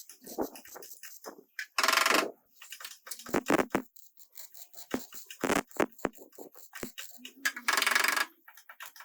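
Body-shop work noises: scattered clicks and knocks of tools handling metal, with two short, loud bursts, one about two seconds in and one near the end.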